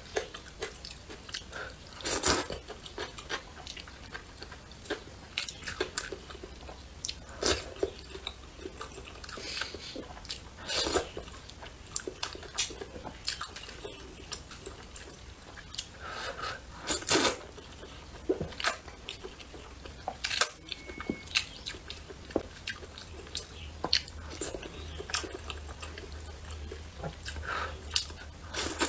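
Close-up eating of spicy glass noodles: wet chewing and mouth clicks, with a louder slurp every few seconds.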